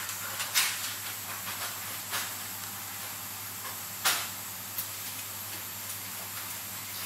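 Small sharp clicks and taps of a watchmaker's tweezers and fine tools against a Seiko 7S26B movement and its holder during assembly, a few single clicks with the loudest about half a second in and about four seconds in. Under them a steady hiss and low hum of the workshop.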